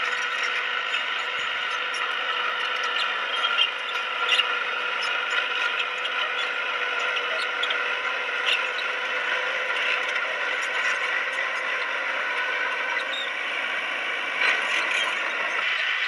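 Crawler bulldozer working: a steady engine drone with scattered sharp metallic clicks and clanks, a few louder ones standing out.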